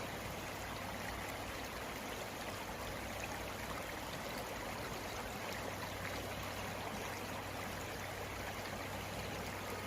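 Steady rushing and trickling of flowing river water.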